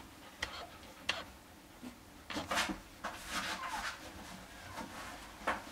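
A few light clicks and short bursts of rustling.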